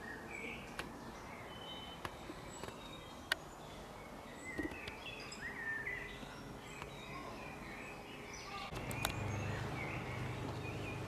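Small birds singing and chirping in the trees, with a few sharp clicks. A low steady hum comes in near the end.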